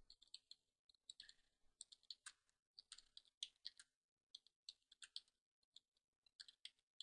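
Faint keystrokes on a computer keyboard: irregular typing, a couple of dozen short clicks with small pauses between words.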